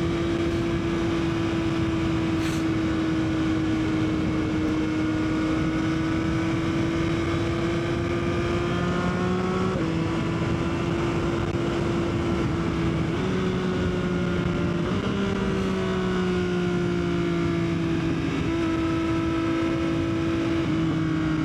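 Yamaha XSR900's three-cylinder engine running at a steady cruise under wind rush, heard from the rider's seat; the engine pitch steps a few times midway through.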